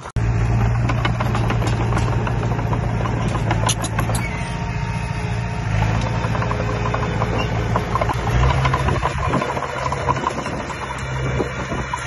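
Small Komatsu crawler bulldozer's diesel engine running steadily as it pushes soil, cutting in abruptly at the start, its pitch shifting a couple of times.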